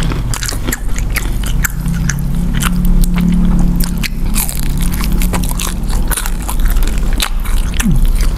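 Close-miked eating: chewing and biting with many small crunches and wet mouth clicks. A low steady hum runs from about two to five seconds in.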